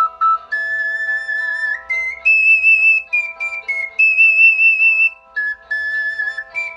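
Ocarina playing a slow melody of long held notes that climb step by step and then fall back, with steady lower accompaniment notes underneath.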